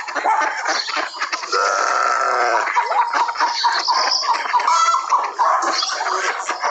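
Farmyard animals calling over one another: chickens clucking among other livestock, with one long drawn-out call about a second and a half in.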